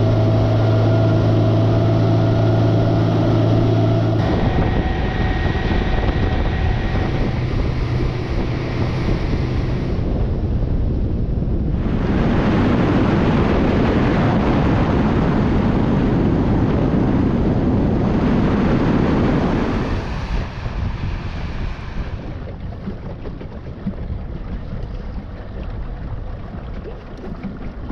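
Outboard motor running steadily at speed with the rush of its wake. Partway through, the engine fades under loud rushing water spray along a planing hull, which gives way to quieter wind and water noise near the end.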